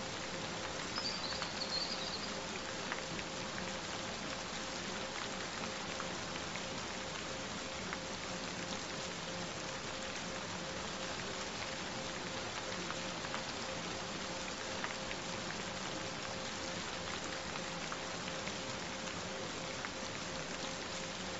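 Steady rain with scattered drop ticks, under a steady pure tone. A brief high chirp comes about a second in.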